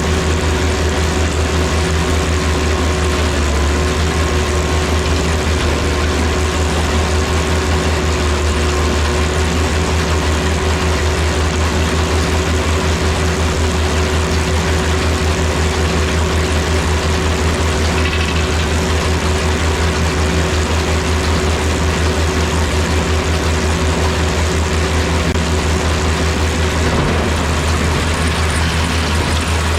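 Diesel engine of a White 2-135 tractor running steadily at working speed while pulling a New Holland BR770A round baler, with the baler's machinery turning along with it. A steady low drone with a constant higher whine over it, changing slightly near the end.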